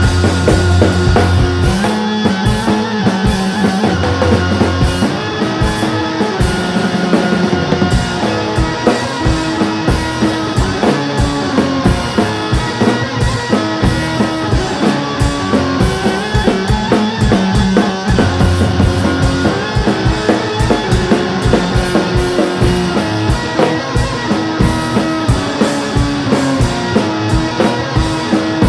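A band playing live: guitar over a drum kit keeping a steady beat, with held low notes underneath.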